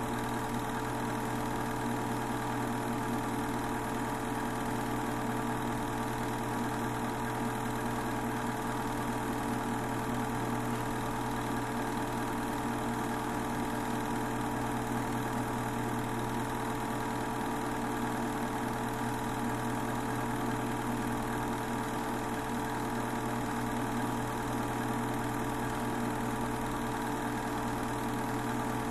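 Steady hum and whir of a Super 8 movie projector's motor running, even and unchanging, with a few constant tones.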